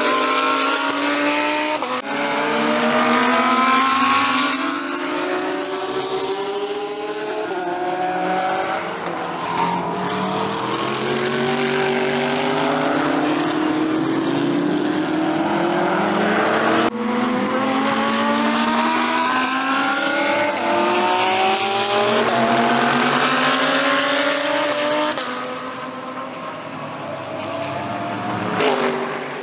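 GT3 race cars accelerating past one after another. Each engine's pitch climbs steeply and drops back at every upshift through the gears. Near the end one car passes close in a brief loud swell.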